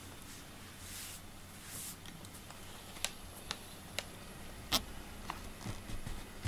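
Handling noise: soft rustling at first, then a handful of sharp clicks and light knocks, the loudest about five seconds in.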